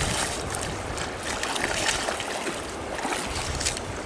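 Shallow river water sloshing and splashing as mud is scooped up by hand and dragged with a hoe, with small irregular splashes and scrapes over a steady wash of water noise.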